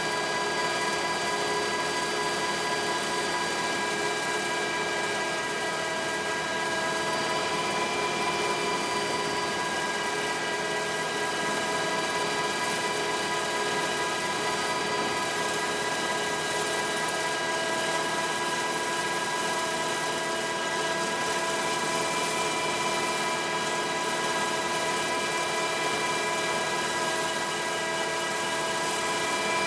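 Helicopter engine and rotor noise heard from on board: a steady, unbroken drone with several steady whining tones.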